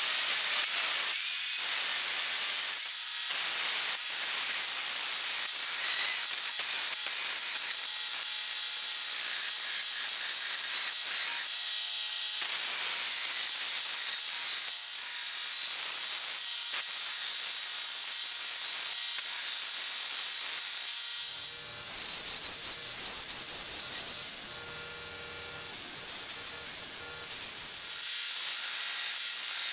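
Power tools grinding steel: an abrasive cutoff disc cutting slots into a steel bar, then a belt grinder grinding the edge of a steel blank, a steady hissing rasp with short breaks. A lower hum joins from about two-thirds of the way through and drops out near the end.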